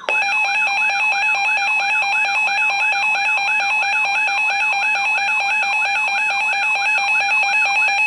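Weather radio emergency alert tones: a loud steady alert tone with a warbling alarm over it, rising and falling about three times a second.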